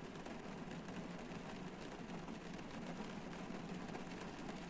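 Steady rain falling on a parked car's roof and windscreen, heard from inside the cabin: a dense hiss with many small ticks of individual drops.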